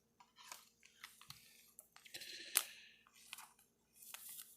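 Trading cards being handled: faint, irregular clicks and brief rustles of card stock, with one sharper click about two and a half seconds in.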